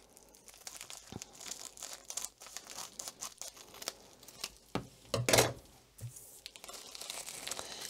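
Scissors snipping through the end of a plastic padded mailer, with the plastic crinkling as the envelope is handled; a louder crinkle about five seconds in.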